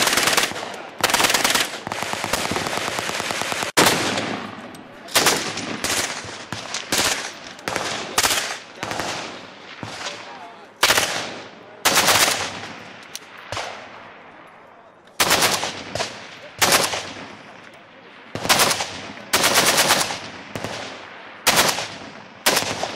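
Gunfire on a firing line from several guns, among them an AK-pattern rifle. A rapid automatic burst runs through the first four seconds or so, then come separate shots and short bursts, each trailing off in an echo.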